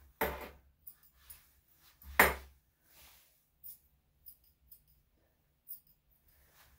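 Grooming scissors snipping a Yorkshire Terrier's leg hair in scattered single cuts, with two louder knocks, one just after the start and one about two seconds in.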